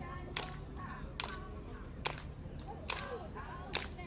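Sharp cracks repeating at an even rhythm, five of them a little under a second apart.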